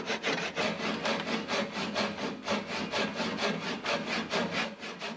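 Handsaw cutting through a softwood block with quick, even back-and-forth strokes, the teeth rasping through the wood grain.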